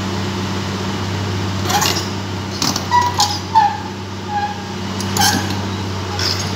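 Heavy diesel engine idling with a steady low hum. A few short, sharp pitched calls sound over it.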